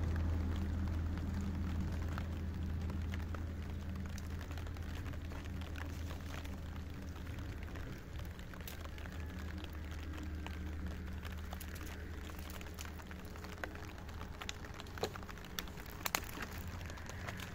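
Rough wooden poles knocking and clattering against one another as they are handled, the knocks growing more frequent near the end, over a steady low hum that slowly fades.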